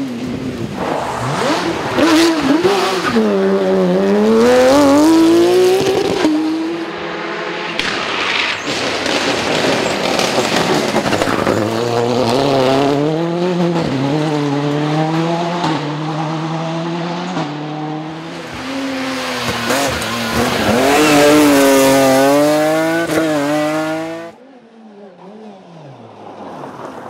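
Rally car engine revving hard, its pitch repeatedly climbing and dropping as it accelerates, shifts and lifts off. The sound drops away sharply near the end.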